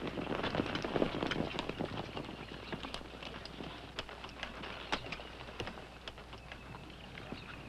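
Hoofbeats of several horses ridden away over rough ground, a scattered clatter of strikes that grows fainter as they go.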